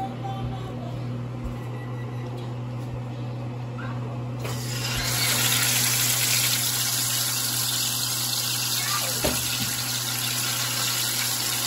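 Pieces of trout frying in hot oil in a stainless steel pan: the sizzle starts about four and a half seconds in and stays loud and steady, over a low hum.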